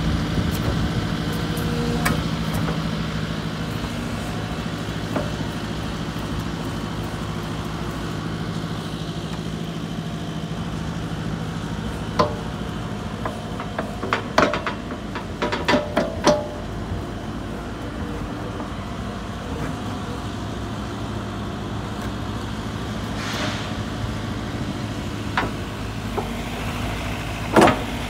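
JCB 85Z-1 midi excavator's diesel engine idling steadily, with a cluster of sharp knocks about twelve to sixteen seconds in and another loud knock near the end.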